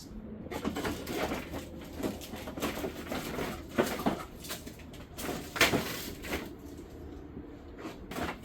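Plastic car bumper cover being handled and fitted into place: irregular rustling, scraping and light plastic knocks, with a sharper knock about five and a half seconds in.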